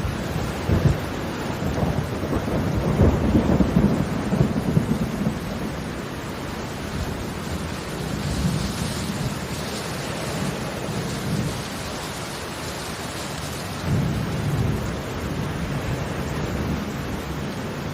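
Steady rain with low rumbles that swell a few seconds in and again near the end.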